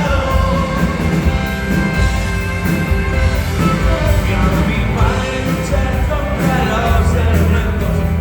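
Rock band playing live, with a singing voice over the instruments and a steady drum beat.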